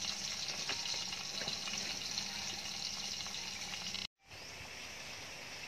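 Steady sizzling from a covered pot where oil is searing the lemon leaves packed around a chicken, releasing their oil, with scattered crackles from the wood fire beneath. The sound cuts off abruptly about four seconds in, leaving a quieter, steady hiss.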